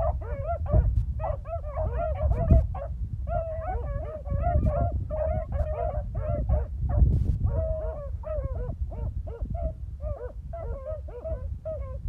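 A pack of beagles baying and yelping together, many short calls overlapping as they run a scent line while hunting. Wind rumbles on the microphone underneath.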